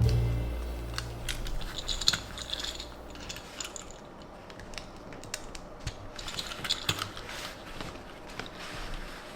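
Hands handling toy packaging and a small die-cast toy vehicle: scattered light clicks, taps and rustling, in two busier bursts. A low musical note fades out at the start.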